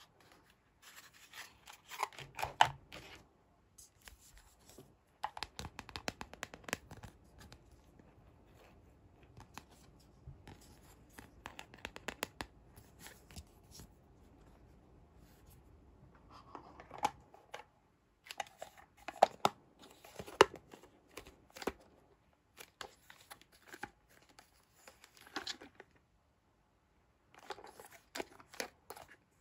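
Hard plastic toy wagon parts being handled and pressed together: irregular clusters of clicks, taps and scrapes, with short pauses between them.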